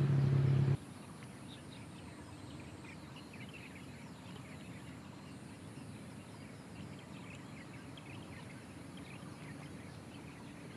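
Many small birds chirping over a faint, steady low background noise. In the first second a loud vehicle engine sound cuts off abruptly.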